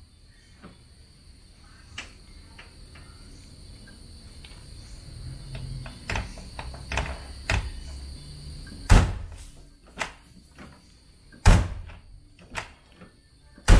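Toyota AE86 Sprinter Trueno's door being shut twice with loud thuds, about nine and about eleven and a half seconds in, with smaller clicks of the handle and latch around them. The door has a newly fitted Aisin door stabilizer, which makes no difference to how it closes.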